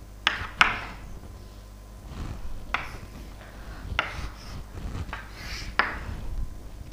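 Chalk on a chalkboard: a handful of short, separate scraping strokes as brackets and an underline are drawn.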